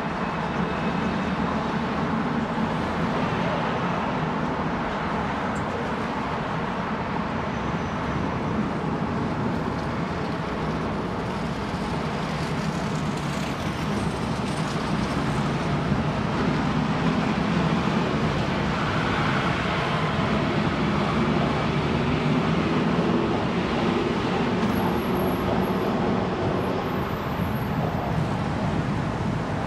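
Steady city street traffic heard from a bicycle riding through Midtown Manhattan: a continuous blend of car and bus engines and tyre noise, with no sudden events standing out.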